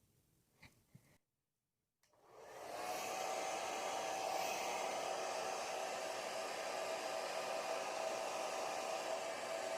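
Hair dryer switched on and blowing steadily, coming in about two seconds in after a brief dead-silent gap, with a steady whine over its rush of air.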